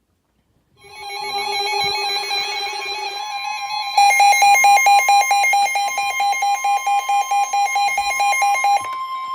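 NOAA Weather Radio warning alert: a steady alarm tone of about 1 kHz, with a rapid, pulsing electronic alarm beep over it that starts about a second in, gets much louder about four seconds in and stops near the end. This is the alert for a new severe thunderstorm warning about to be read.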